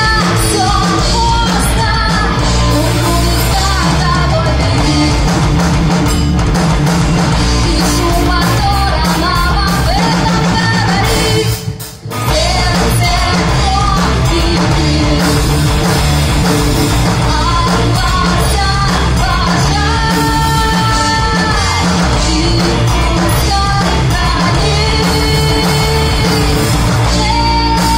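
Live rock band playing: electric guitars, bass and drums with a woman singing over them. The music drops out for a moment about twelve seconds in, then carries on.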